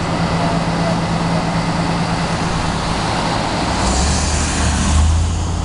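Steady drone of an idling vehicle engine over road traffic noise. From about four seconds in, a deeper rumble with a hiss swells for a second or so, as of a heavier vehicle going by.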